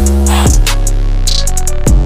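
Music: a loud drum-machine beat with deep kick drums that drop in pitch, a steady bass and sustained chords, and short hi-hat ticks over the top.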